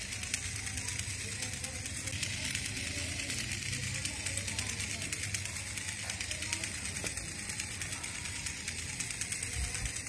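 Infrared remote-control toy stag beetle walking, its small motor and plastic leg gearing running with a fast, steady clicking whir.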